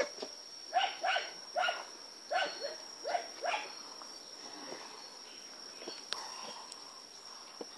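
A dog barking, about seven quick barks starting about a second in, then quiet, over a steady high-pitched insect drone.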